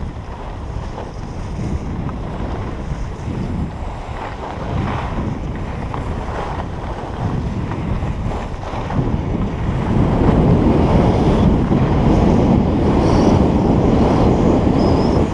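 Wind buffeting the microphone of a camera carried by a skier speeding downhill, mixed with the hiss and scrape of skis on packed snow. It grows louder about ten seconds in.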